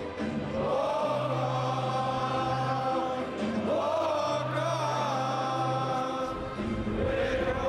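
A football stadium crowd singing a slow anthem together in long held notes, the tune rising and falling.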